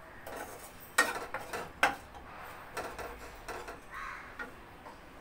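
Wooden spatula stirring whole grapes in a nonstick kadai, knocking and scraping against the pan. Two sharp knocks about a second and nearly two seconds in, then lighter taps and scrapes.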